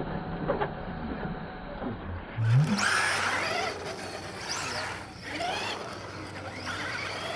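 Electric radio-controlled cars' motors whining, the pitch rising and falling as they speed up and slow down, over the hiss of small tyres on asphalt. The whine comes in abruptly about two and a half seconds in.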